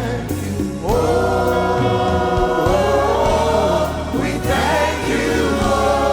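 Gospel worship music: a choir singing long held notes over a steady bass accompaniment.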